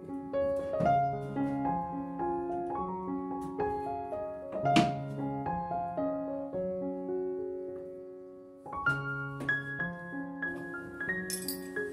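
Background piano music, with a single sharp knock about five seconds in.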